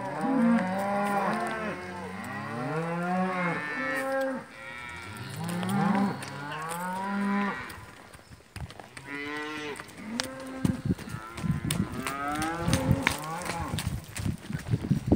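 Several cattle mooing, long calls overlapping one another and bending in pitch, thickest in the first half. In the last few seconds a quick, irregular clatter of clicks and knocks runs under fainter moos.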